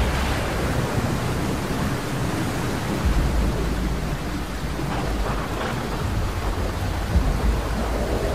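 Storm wind and heavy rain, with gusts buffeting the microphone in low rumbles that swell and fade several times.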